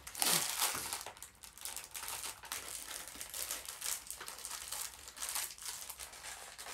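Small plastic bag of Lego pieces crinkling in the hands as it is handled and opened, in irregular rustles, loudest just after the start.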